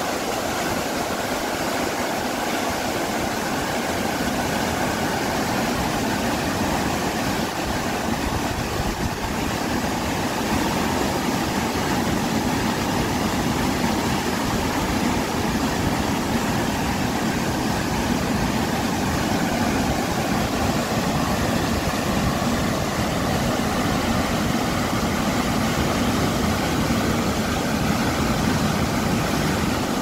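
Mountain stream in flood after monsoon rain, muddy water rushing and churning over rapids in one steady, dense rush that grows a little louder after about ten seconds.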